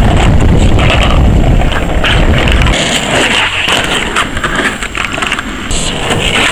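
Skateboard wheels rolling over rough asphalt: a steady, rough rumble, heaviest in the first few seconds and lighter after that.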